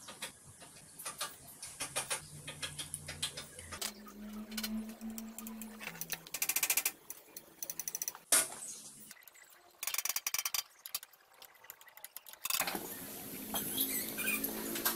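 Small clicks and taps of metal parts being handled and fitted on a cast-iron sewing machine head, with two stretches of rapid, even ticking, the first about six seconds in and a longer one about nine seconds in.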